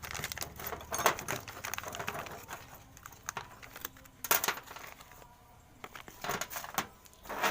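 Small metal parts and tools of a power sprayer pump clinking and tapping as they are handled: a string of irregular clicks, with louder knocks about a second in, at about four seconds and near the end.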